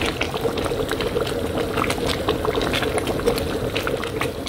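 Thick vegetable sauce boiling in a pan: steady bubbling with many small pops.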